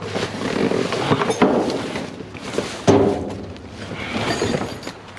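Rummaging through junk and scrap by hand: irregular rustling and clatter of items being moved, with a few sharper knocks, the loudest about three seconds in.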